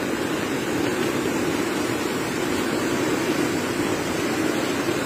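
Fast-flowing muddy floodwater rushing past in a steady, unbroken rush.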